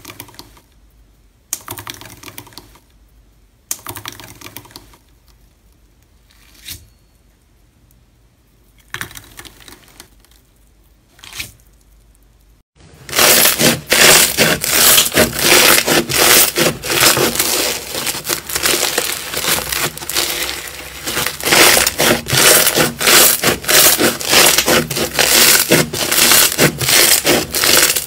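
Gold foil crinkling in separate bursts, about every two seconds, as a wire masher presses it into clear slime. Then, from about thirteen seconds in, foam-bead slime (floam) crackles and pops loudly and without a break as hands squeeze and knead it.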